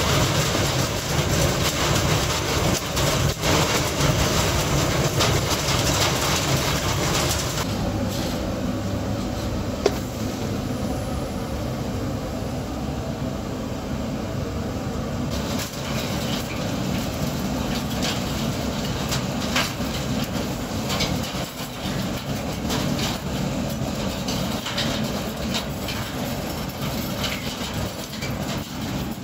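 PCB component dismantling machine running: a steady mechanical din with a dense, continuous clatter of circuit boards and loose electronic parts rattling inside it.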